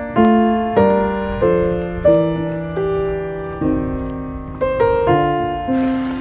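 Background piano music: a slow melody over chords, a new note struck about every half second to a second and left to fade. A steady hiss comes in near the end.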